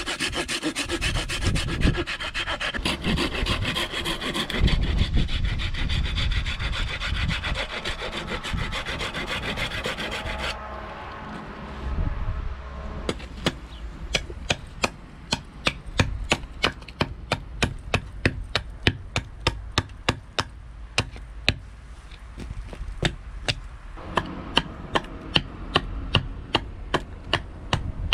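Small handsaw sawing a row of stop cuts across a birch spoon blank in quick back-and-forth strokes; about ten seconds in the sawing stops, and soon after a knife chops away the wood between the cuts in a steady run of sharp knocks, about two or three a second.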